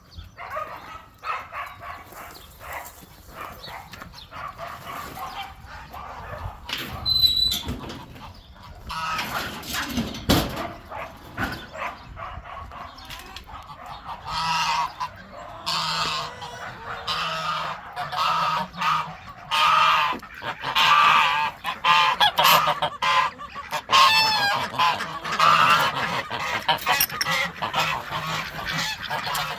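A flock of farm waterfowl calling at feeding time, with repeated loud calls that come thick and fast from about halfway through. A few sharp knocks come before that.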